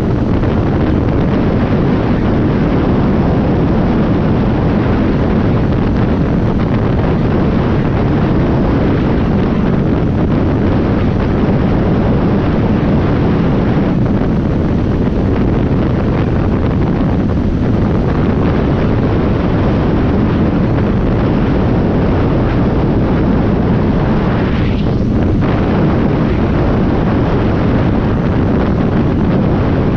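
Side-by-side UTV driving steadily on a sandy dirt road: loud, constant wind rush on the microphone over the engine and tyre noise.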